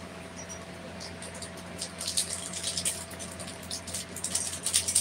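A metal spoon stirring and scraping food in a steel pan on a gas stove, in short irregular bursts, over a steady low hum.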